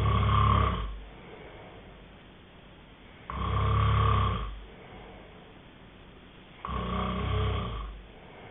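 Snoring in deep sleep: three loud snores, each about a second long, coming regularly about every three and a half seconds.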